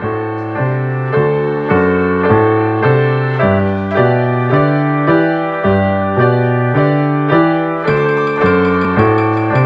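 Background music: piano playing an even, steady pattern of chords over a moving bass line, a new stroke a little more than every half second.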